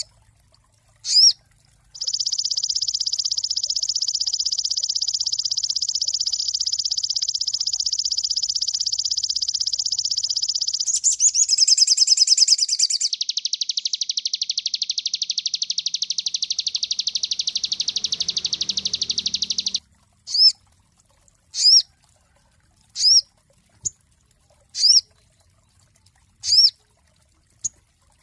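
Sogon songbird singing: a long, very fast high trill that runs unbroken for about eighteen seconds and changes pattern partway through, then a string of short, rising whistled notes about one every second and a half.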